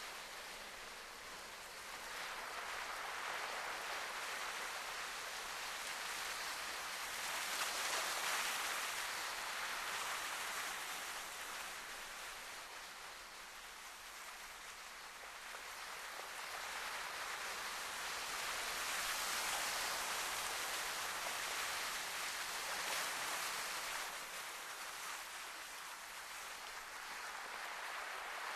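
Sea waves washing ashore: a steady hiss that slowly swells and fades, loudest about eight and twenty seconds in.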